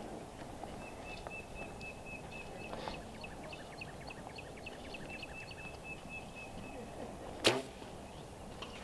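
A compound bow is shot once about seven and a half seconds in: one sharp snap of the string release. Faint, high chirping repeats several times a second in the background before it.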